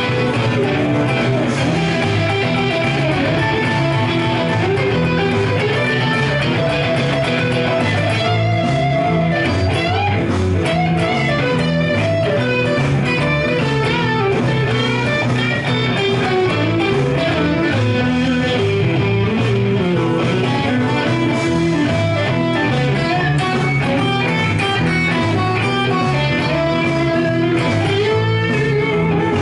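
Stratocaster-style electric guitar played through an Egnater amp, improvising blues lines and licks.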